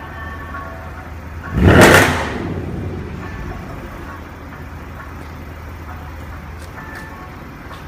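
Car exhaust rumbling at idle, with one sudden loud blast from the exhaust about a second and a half in that dies away within about a second.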